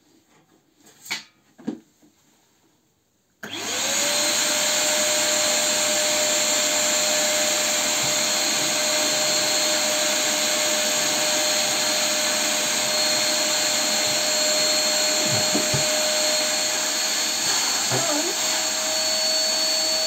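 Drum-style wet/dry vacuum cleaner switching on about three and a half seconds in, after two short knocks, and running steadily with a motor whine that rises briefly as it spins up. The whine wavers for a moment near the end as a jacket is pushed into the intake.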